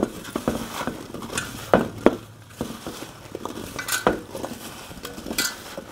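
Cut raw green mango pieces being tossed by hand with salt and turmeric in a steel bowl: irregular knocks and clacks of the firm pieces against the metal, a few leaving a brief ring.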